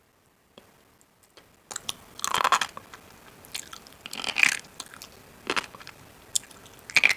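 Crisp food being bitten and chewed, crunching in short bursts. The loudest come about two and four and a half seconds in, after a near-quiet first second and a half.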